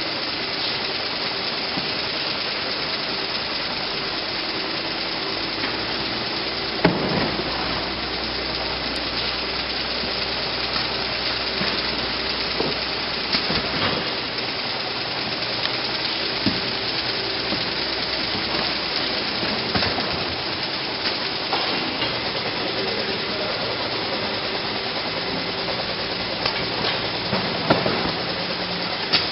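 Steady machine noise of a factory conveyor line with modular plastic belt conveyors running, broken by a few sharp knocks.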